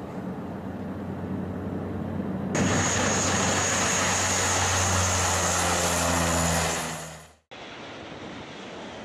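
Twin-engine turboprop airliner's engines and propellers running at high power: a steady propeller drone that jumps much louder about two and a half seconds in, with a high turbine whine over it. It fades and then cuts off sharply about seven seconds in, and a quieter rushing noise follows.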